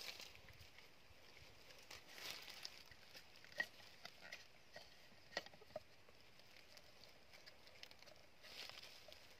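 Faint handling of a bamboo tube trap: soft rustling and a few light, sharp clicks as the bamboo pieces and trigger sticks knock together under the hands.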